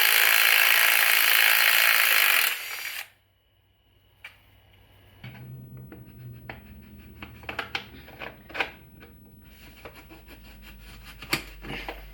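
A power tool runs loudly and steadily for about two and a half seconds, then cuts off. After a pause come scattered clicks and light knocks of tools against metal, over a low hum.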